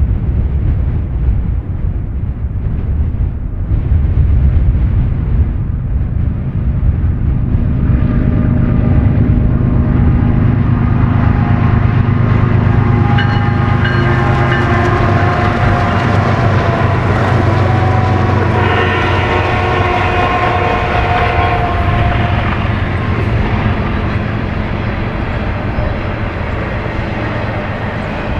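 BNSF freight train's diesel locomotives running past, a steady low rumble with engine tones that build from about eight seconds in. The tones drop slightly in pitch a little past the middle as the locomotives go by.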